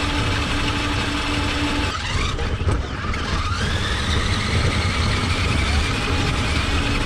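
Electric motor and gear drive of a radio-controlled rock crawler truck whining over a low rumble. The whine rises in pitch about three seconds in as the truck speeds up, then holds steady.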